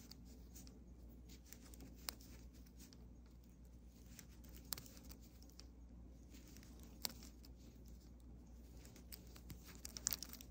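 Faint knitting sounds: wooden knitting needles clicking together and yarn rustling as stitches are worked. There are a few sharp clicks spread a couple of seconds apart, then a quicker run of small clicks near the end, over a low room hum.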